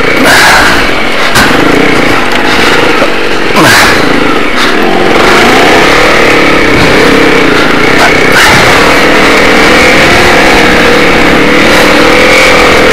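Motorcycle engine running off-road, its pitch rising and falling as the throttle is opened and closed, under loud rushing noise on the helmet-mounted microphone and a few sharp knocks.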